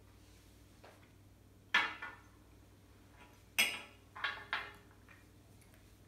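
Glassware set down on a glass-topped coffee table: a sharp clink about two seconds in, then three more in quick succession around the four-second mark, each ringing briefly.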